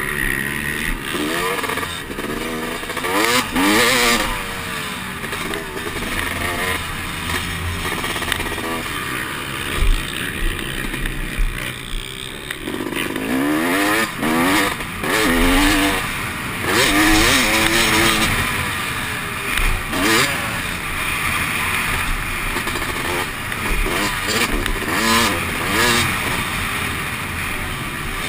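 Dirt bike engine under hard riding, its pitch repeatedly rising and falling as the rider works the throttle and shifts, heard from the rider's helmet with a steady rush of wind and track noise underneath.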